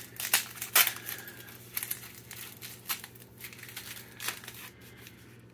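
Packaging handled by hand: irregular crinkling and rustling with scattered sharp clicks, the loudest about a second in, thinning out toward the end.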